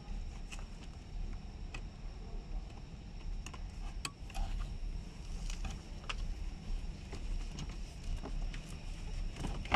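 Scattered small clicks and rattles of plastic wiring connectors and cable being handled and tucked into a car dashboard, over a steady low hum.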